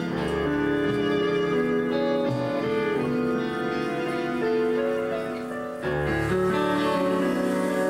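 Live instrumental chamber music: bowed strings hold long notes over acoustic guitar, and a deeper low part comes in about six seconds in.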